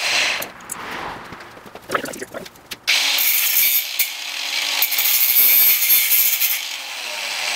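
Angle grinder's abrasive wheel grinding the corner off an aluminum heat sink pressed against it by hand. The grinding falls away for a moment, then starts again about three seconds in and keeps going.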